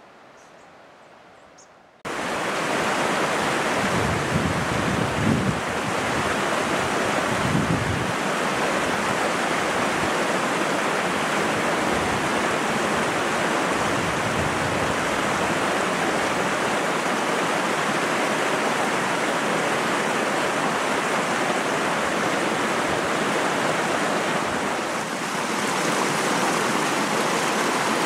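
Rushing river water, a loud, steady rush that starts abruptly about two seconds in after a quiet stretch, with a few low bumps shortly after it begins.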